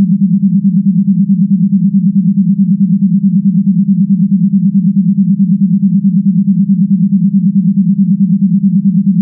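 Star Trek electronic sound effect: a steady, low hum that pulses rapidly and evenly, about eight times a second.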